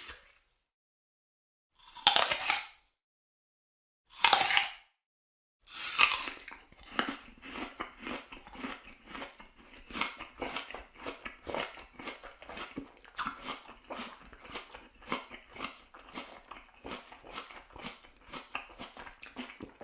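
Crisp apple bitten into three times, about two seconds apart, each bite a sharp crunch. Then it is chewed with quick, rhythmic wet crunching, several strokes a second.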